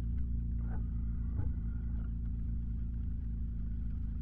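Steady low rumble of a car's engine and road noise, heard from inside the cabin while driving, with a couple of faint brief knocks about a second in.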